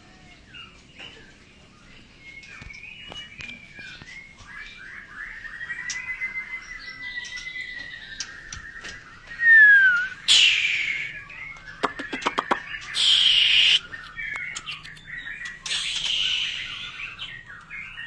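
White-rumped shamas (murai batu) singing in an aviary: a continuous, varied whistling song with gliding notes. Several loud, rasping calls break in from about ten seconds on.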